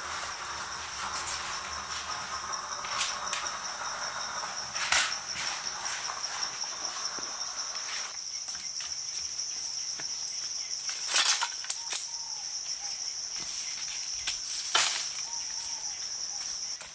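Insects trilling in one steady high-pitched drone, with three sharp clicks about 5, 11 and 15 seconds in.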